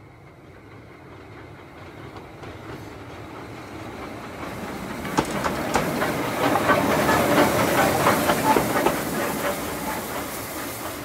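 Saddle tank steam locomotive running light, approaching and passing close by. Its wheels clack over the rail joints as it goes by, over a hiss of steam, and the sound fades as it moves away.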